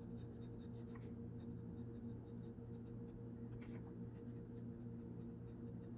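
Glass dip pen nib scratching faintly across paper as a word is written, with a few small ticks from the nib, over a steady low hum.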